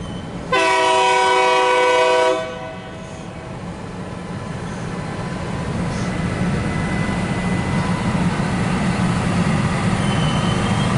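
CSX switch rail grinder sounding a single horn blast of about two seconds, several notes at once. After the blast its engine and wheels rumble steadily, growing louder as it comes closer.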